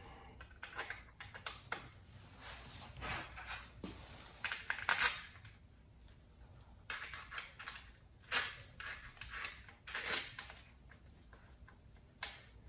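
Light metallic clicks, clinks and short scrapes of tools and engine parts being handled during engine assembly, coming irregularly every second or so.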